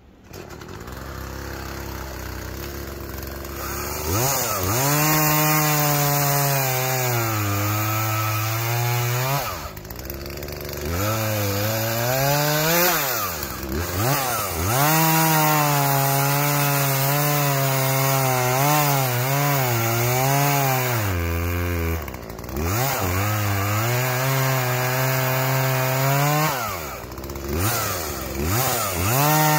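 Chainsaw running low at first, then revving up about four seconds in and cutting through an ash log several times. In each cut the engine note sags under load, and between cuts it drops off and revs back up.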